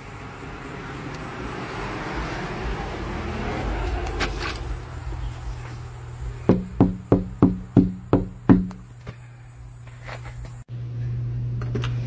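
Knuckles rapping on a front door's decorative glass panel: about seven quick, evenly spaced knocks, each with a short ring, starting a little past halfway. Before the knocks there is a soft outdoor background hiss.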